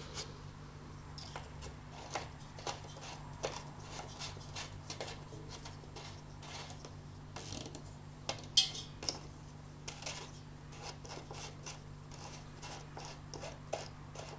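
Scattered light clicks and taps from a lawnmower's oil dipstick and filler cap being handled while the oil level is checked, the sharpest click about eight and a half seconds in, over a steady low hum.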